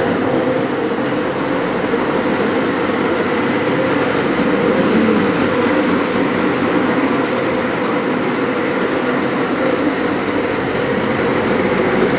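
Electric bumper cars running on a concrete floor: a steady motor hum with an even rolling noise, no collisions.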